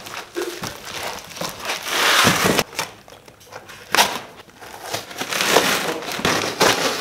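A cardboard shipping box being slit open with a knife and its taped flaps torn back: scraping, ripping and crinkling cardboard and packing tape, with a long loud tear about two seconds in and a sharp crack about four seconds in.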